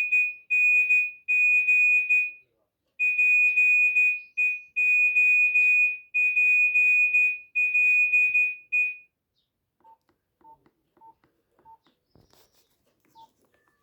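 Nokia 1280 phone playing a monophonic tone through its small loudspeaker: one high beep pitch repeated in short rhythmic groups, stopping about nine seconds in. A few faint short lower beeps and a click follow.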